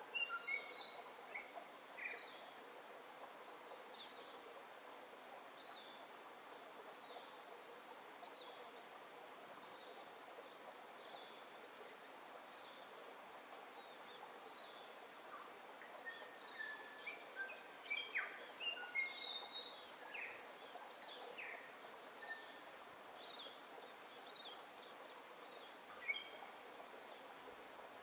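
Birds calling over a faint steady hiss: one bird repeats a short, high, falling chirp about every second and a half, and past the middle other birds join with a brief flurry of varied chirps.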